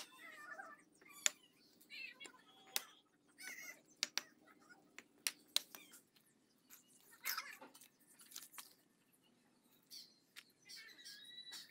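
Sharp, scattered clicks and knocks of bricklaying work: a hammer tapping bricks into place, then a trowel clinking and scraping in a metal pan of mortar. Short bird chirps come in now and then.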